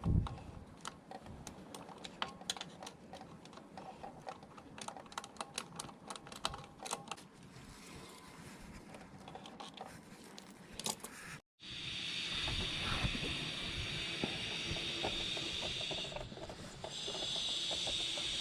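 Scattered light clicks and taps of tools and small parts being handled while a scooter's gearbox is taken apart. About eleven seconds in, this cuts abruptly to a steady hiss with a low rumble.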